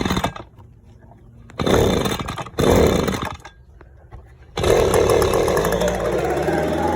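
Gas-powered leaf blower engine revved in three short blasts, dropping back to a quiet idle between them, then held at high throttle from about two-thirds of the way in.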